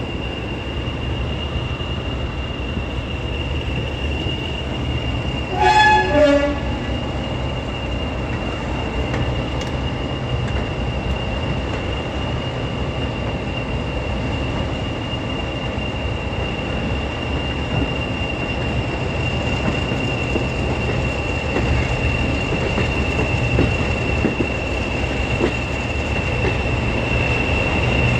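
English Electric Class 40 diesel locomotive D213 running steadily, its 16-cylinder English Electric engine droning under the high steady whistle of its turbochargers, the whistle the class is nicknamed for. About six seconds in its two-tone horn sounds briefly, a higher note then a lower one.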